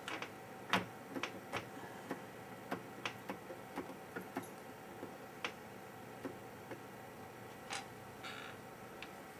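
Light, irregular clicks and taps of a metal BGA reballing jig and its stencil being handled and turned in the hands.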